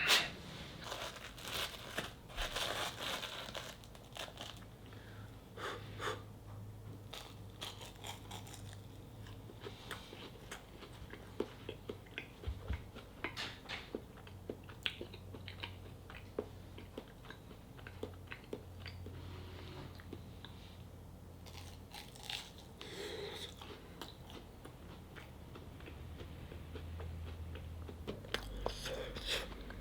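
A black mameshiba (small Shiba dog) chewing and eating, with irregular small crunching and biting clicks, thicker at the start, about two-thirds of the way through and near the end.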